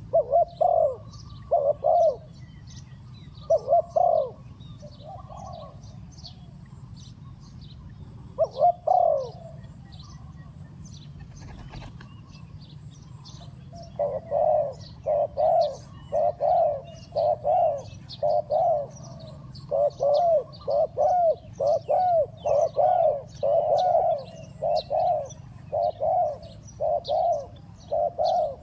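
Spotted dove cooing: a few coo phrases in the first seconds, then from about halfway a fast, steady run of repeated coos. Small birds chirp high and thin throughout, over a low steady hum.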